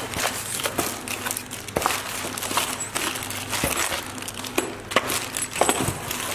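Clear plastic bags of furniture hardware crinkling and a cardboard box rustling as hands rummage through the parts, with small clicks and knocks throughout.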